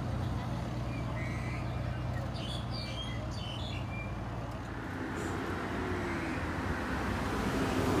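An engine running at a steady idle, its hum weakening after about five seconds, with a few short bird chirps in the middle.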